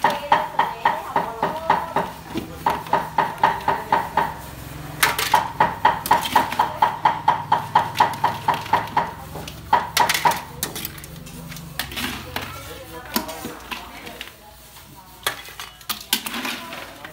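Long-handled metal ladle scraping and knocking against a steel wok while cooked crabs are scooped out into an aluminium colander. The strikes come quick and regular, about four or five a second with a ringing metallic tone, in runs broken by short pauses, then turn to sparser knocks and clatter in the last few seconds.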